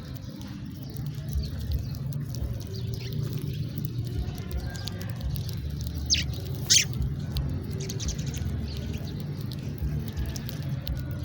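House sparrows chirping in short, scattered calls, with one louder, sharp chirp about six and a half seconds in, over a steady low rumble.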